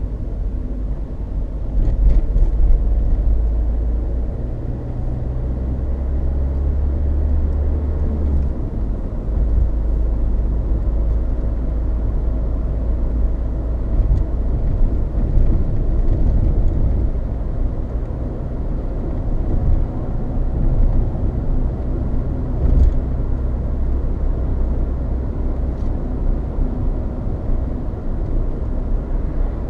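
Loud, steady tyre roar and road rumble heard inside the cabin of a Peugeot 306 2.0 HDi on the move, from its Dunlop Sport BluResponse tyres, with a few faint knocks over bumps. The owner has ruled out suspension, bearings, balance and alignment and wonders whether the noise is down to tread wear.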